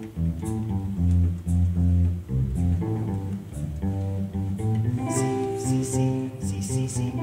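Guitar and bass playing the slow doo-wop chord progression C, A minor, F, G, each chord held about a second. Light high taps join about five seconds in.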